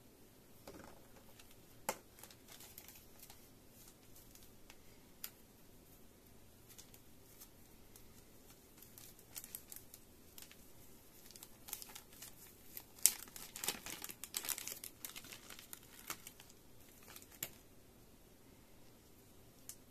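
Thin clear plastic bag crinkling and tearing as it is handled and opened to get at earphone ear-tip sleeves: scattered sharp crackles and clicks, busiest in the second half, with one sharp snap about thirteen seconds in.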